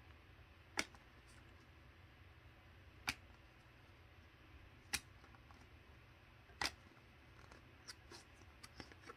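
Cardboard trading cards being handled one at a time in a hand-held stack: a sharp snap of card against card about every two seconds, four in all, then a few fainter flicks near the end.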